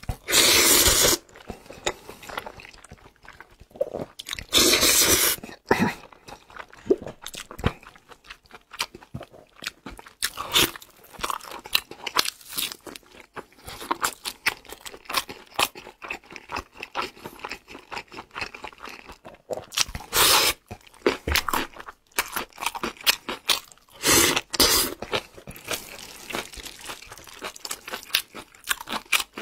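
Close-miked eating of noodles in black bean sauce: several loud slurps of about a second each (at the start, about 5 s in, and twice near 20 and 24 s), with steady chewing and crunchy clicks in between.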